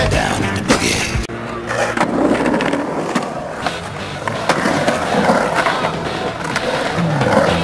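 Skateboard wheels rolling on a concrete bowl, with several sharp clacks of the board against the concrete and coping in the first second or so.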